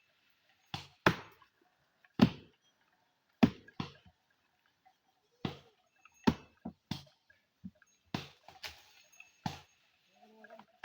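Chopping blows of a hand-swung blade biting into a tree's wood: about a dozen sharp chops at an uneven pace, roughly one every half second to a second.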